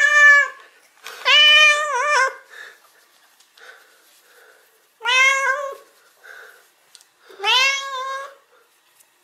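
Black-and-white domestic cat meowing loudly four times, a few seconds apart, greeting its owner back home. The first meow is already under way at the start, and the second is long and wavers at its end.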